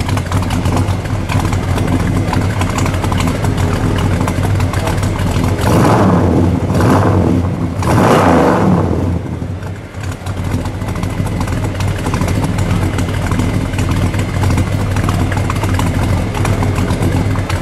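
1968 Plymouth GTX's factory 426 Hemi V8 idling, heard at the exhaust tips. About six seconds in it is revved a few times in quick succession, the last rev the loudest, then it drops back to a steady idle.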